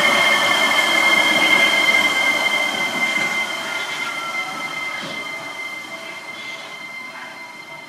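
Seibu 8500 series rubber-tyred guideway train running past and away around a curve. A steady high-pitched squeal and a whine that slowly falls in pitch run over the running noise, and the whole sound fades from about two seconds in as the train recedes.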